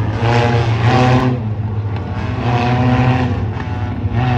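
A pack of four-cylinder dirt-track race cars running together in formation, a steady low engine drone with revs rising and falling.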